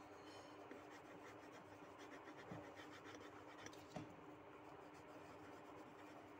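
Faint scratching of a pencil on drawing paper as lettering is shaded in, with a steady faint hum and two light knocks about two and a half and four seconds in.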